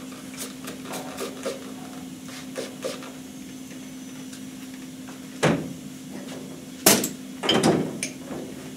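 Metal tools being picked up and set down on a steel workbench: a few sharp clanks and a short clatter in the second half, over a steady shop hum.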